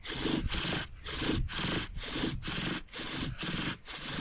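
Bow drill spindle spinning back and forth in a wooden hearth board: a rhythmic rasping squeal that breaks at each reversal of the bow, about two strokes a second, as the hole is burned in.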